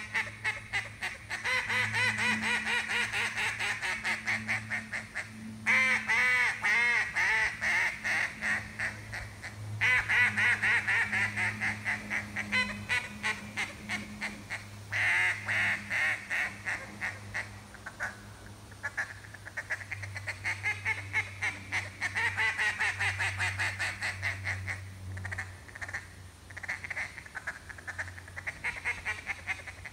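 RNT Daisy Cutter duck call blown in long runs of rapid quacks and chatter imitating a mallard hen, broken by short pauses, with some runs falling in pitch.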